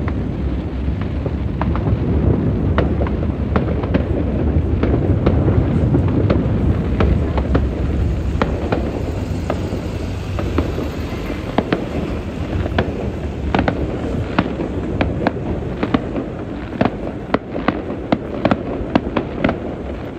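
New Year fireworks going off in the distance: many sharp bangs and crackles over a continuous deep rumble. The cracks stand out more clearly in the second half.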